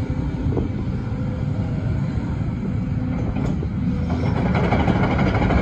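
Case CX350B excavator's six-cylinder diesel engine running with a steady low rumble as the boom and arm are worked; about four seconds in it gets louder and harsher as the load comes on.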